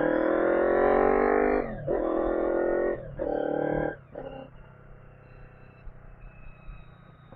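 Honda VFR800Fi's V4 engine revving hard under acceleration, its pitch climbing, broken by three quick upshifts about two, three and four seconds in. After the last shift the throttle closes and the engine sound falls away to a low, quiet hum.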